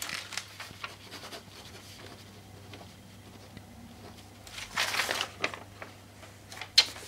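Paper sheets being handled and shifted on a table, with a burst of rustling about five seconds in and a few light clicks and knocks around it.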